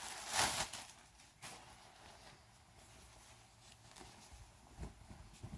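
Packaging crinkling in a short burst of handling at the start, then faint rustles as the box's contents are handled.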